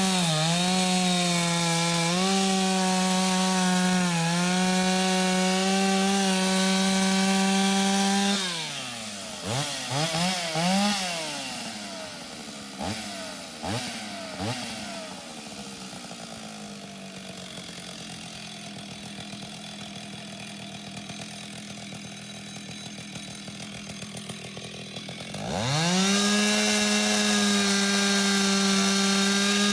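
Antique Stihl two-stroke chainsaw held at full throttle, its pitch dipping briefly under load as it cuts wood. About eight seconds in it is let off, blipped a few times, and settles into a steady idle. Near the end it revs back up to full speed.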